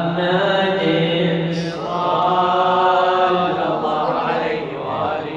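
A man chanting an Arabic mawlid narrative in slow, melodic recitative, drawing out the word "Muhammad" in long held notes with a short break about two seconds in.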